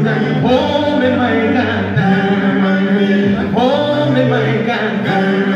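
Male a cappella gospel group singing in close harmony into microphones, a bass voice holding long low notes beneath the upper parts.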